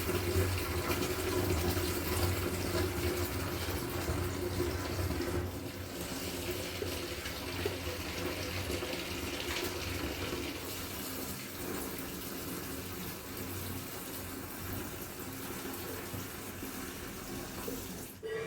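Water running steadily from a tap, cutting off just before the end.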